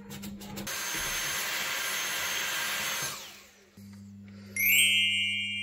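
Vacuum cleaner running with a steady rush of suction, switched off about three seconds in, its motor whine falling away as it winds down. A higher steady whine starts near the end.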